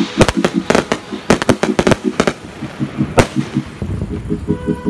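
Fireworks going off: a rapid string of sharp bangs and crackles, densest in the first second and a half, with one big single bang about three seconds in.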